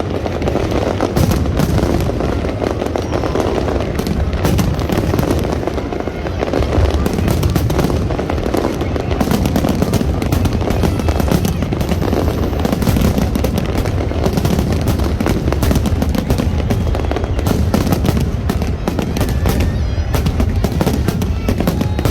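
A large fireworks display going off without pause: a dense run of bangs and crackles over a continuous low rumble.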